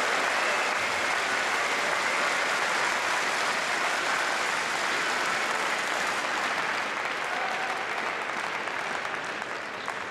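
Crowd applauding steadily, tailing off slightly near the end.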